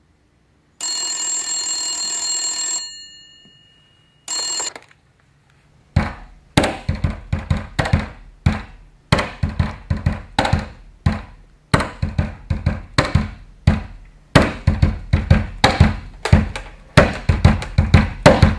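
A telephone rings, one long ring of about two seconds and then a short one. About six seconds in, music with a steady drum beat starts and keeps going.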